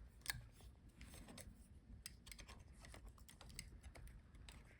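Near silence with faint scattered clicks and taps, one a little louder about a third of a second in: small laptop parts being handled as the cooling fan's cable is unplugged from the motherboard.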